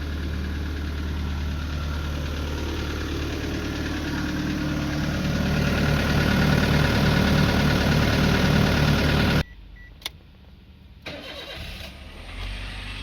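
Nissan Terrano diesel engine idling steadily, growing louder over a few seconds, then cutting off suddenly about nine seconds in. A single click and faint low mechanical sounds follow.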